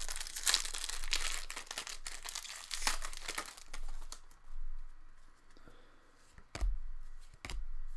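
Foil wrapper of an Upper Deck Series 1 hockey card pack being torn open and crinkled for the first three or four seconds, then quieter rustling as the cards are slid out, with two soft knocks near the end.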